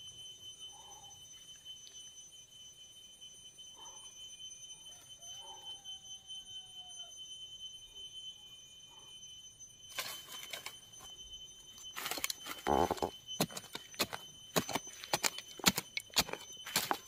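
A steady high-pitched insect drone with a few faint bird calls. About ten seconds in, a blade starts digging into soil in a quick run of strikes and scrapes, the loudest blows a couple of seconds later.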